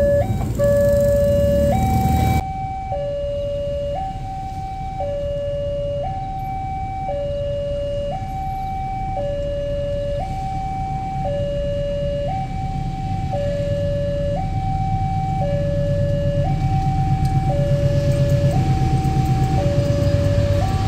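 Railway level-crossing warning alarm sounding a steady electronic two-tone signal, alternating between a higher and a lower note about once a second. A low rumble builds under it in the second half, as a train comes near.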